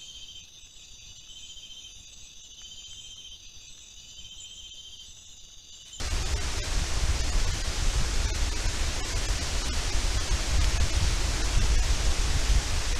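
Night insects chirring steadily, with one pulsed call repeating about every second and a half. About six seconds in, this cuts to the loud, steady hiss of heavy rain with a low rumble underneath.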